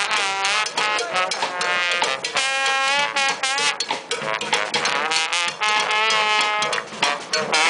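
Street brass band playing, the horns bending and sliding between notes over percussion hits.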